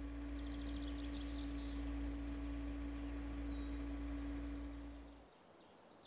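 Mini excavator's diesel engine running steadily: a low hum with one steady tone, which stops about five seconds in. Birds chirp faintly in the first few seconds.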